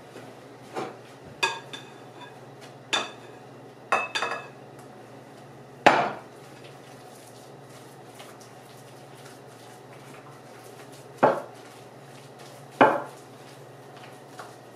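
Spatula knocking and scraping against a glass mixing bowl while working a thick batter: about eight sharp, irregular clacks, the loudest about six seconds in.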